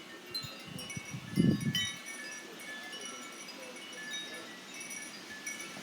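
Wind chimes tinkling in the gusty wind, scattered high ringing notes throughout. A short low rumble comes about one and a half seconds in and is the loudest moment.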